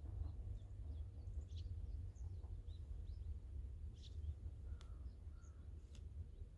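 Small birds chirping in short, scattered notes over a steady low rumble, with two faint ticks near the end.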